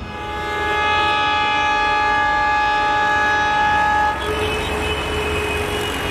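Diesel locomotive's horn sounding one long, steady, multi-tone blast that cuts off suddenly about four seconds in, followed by steady background rumble.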